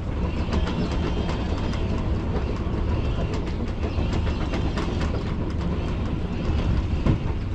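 Jeanneau Sun Odyssey 33i's inboard diesel engine running steadily as the yacht motors slowly out of harbour: a low rumble with light clicks and rattles over it.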